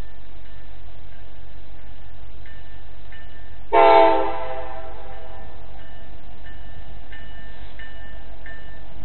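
A single short blast of a diesel locomotive's multi-tone air horn about four seconds in, a chord that cuts off after about half a second and rings away, over a steady low rumble.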